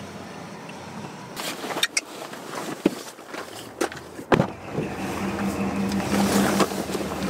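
Car interior: steady road noise at first, then a few sharp knocks and clunks, and rustling as the driver climbs in through the open door over a steady low hum.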